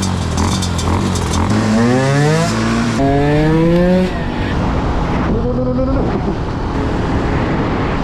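Small 125 cc motorcycle engine accelerating hard, its revs climbing, dropping at a gear change and climbing again, then easing off before a short rise once more.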